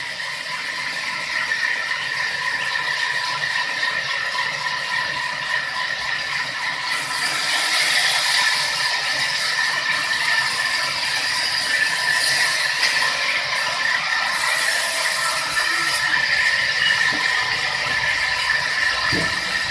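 Sawmill saw machine running steadily with a constant whine, getting brighter and a little louder about seven seconds in.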